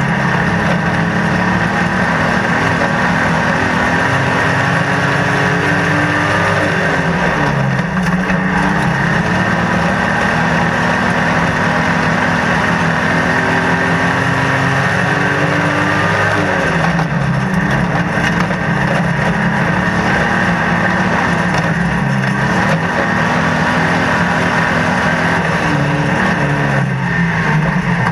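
Speedway stockcar's engine heard from inside the cockpit, running hard and loud. Its pitch dips and climbs back three times, as the car comes off the throttle into the turns and accelerates out.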